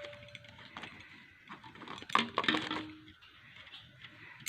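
Light clicks and knocks of hard plastic mixer-grinder juicer-jar parts being handled, with a small cluster of them a little past two seconds.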